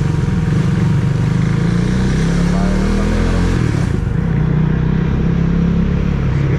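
Motorcycle engine running while riding; the engine note climbs, then drops abruptly about halfway through and carries on steadily.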